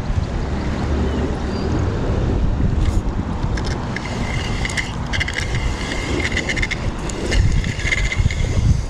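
Steady low rumble of wind buffeting the microphone. From about three seconds in, rapid fine ticking and scattered clicks sit over it.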